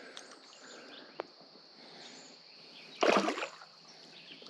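Quiet outdoor creek ambience with a steady high-pitched hiss, a single sharp click about a second in, and a brief wordless voice sound about three seconds in.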